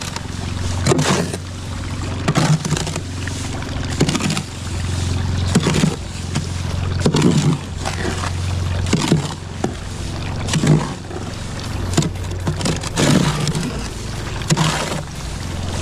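A hoe being pushed and pulled through wet concrete mix in a wheelbarrow: repeated scraping, sloshing strokes about every second or two, as added dry concrete is worked in to stiffen a batch that was too wet. A steady low hum runs underneath.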